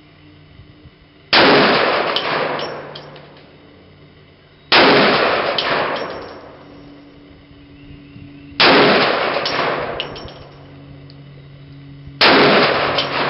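Four shots from a Desert Eagle .50 AE pistol, spaced about three and a half seconds apart. Each loud report is followed by a long echoing decay with a few small metallic clinks in it.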